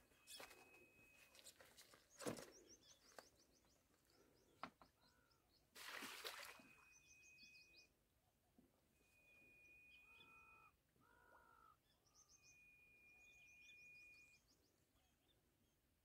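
Faint birdsong: a bird repeats a long, steady high whistle several times, with runs of quick, very high chirps in between. A sharp snap about two seconds in and a brief rustle about six seconds in come from footsteps over dry sticks on the bank.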